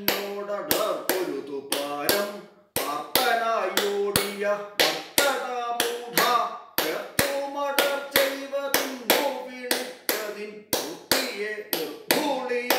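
A man singing a line of a Kathakali padam with long held notes while keeping the tala with sharp hand claps, about two claps a second, the rhythm he goes on to name muri champa.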